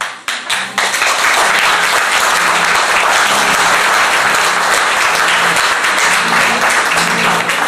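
Audience applauding in a hall at the end of a scene, starting abruptly and holding steady and loud, with music playing faintly underneath.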